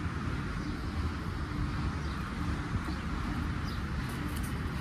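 Steady background rumble and hiss with no distinct event, and a faint low tone that comes and goes.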